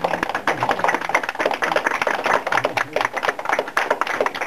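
Audience applauding: a dense, irregular patter of many hands clapping.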